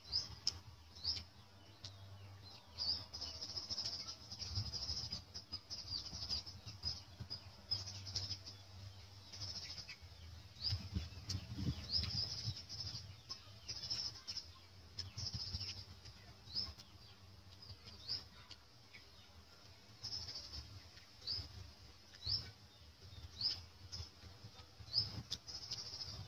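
Small birds chirping over and over, short high sweeping chirps about once a second above a steady high background chatter. Low, soft chewing sounds come and go beneath them.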